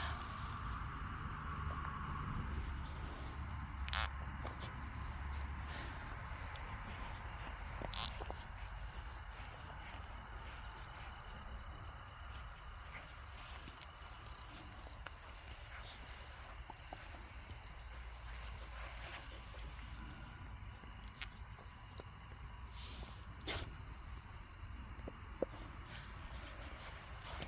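Insects trilling in one steady, high-pitched, unbroken drone, with a few faint clicks.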